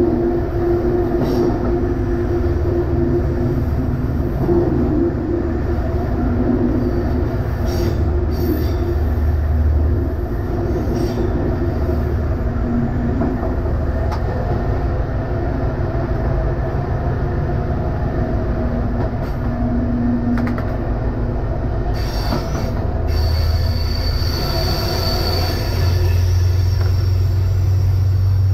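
Silver Fern diesel railcar running steadily through a rock tunnel, heard from the driver's cab: a continuous low engine drone with wheel-on-rail noise. A thin high wheel squeal comes in for a couple of seconds near the end.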